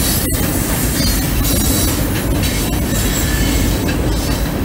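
Freight train of covered hopper cars rolling across a steel girder bridge overhead: a steady, loud rumble of wheels on the deck with a faint high-pitched wheel squeal.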